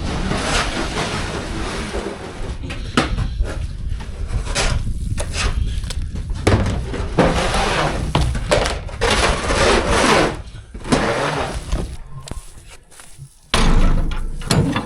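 Scraping of thick, stiff manure being worked out of a livestock trailer in irregular strokes, over a steady low rumble.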